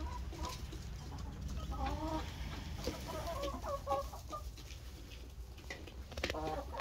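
Hens clucking in a coop while they feed. The short, soft calls come in several loose runs.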